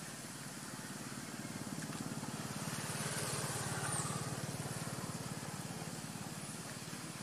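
A motor vehicle's engine passing by: a low, rapid pulsing that grows louder to a peak about four seconds in, then fades.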